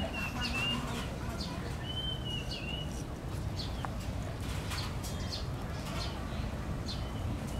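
Birds chirping: repeated short high chirps, with longer wavering whistled calls near the start and again about two seconds in, over a steady low rumble.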